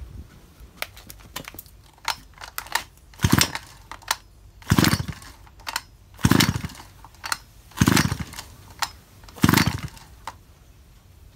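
A Shindaiwa chainsaw's recoil starter pulled five times, about a second and a half apart, turning the engine over with a brief whirr on each pull. The engine does not catch.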